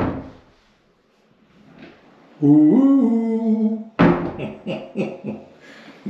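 Closet door thudding shut at the start, then near quiet. About two and a half seconds in, a man hums a gliding note for over a second. At four seconds a sharp knock as the door latch is worked and the door opened, followed by a few clicks.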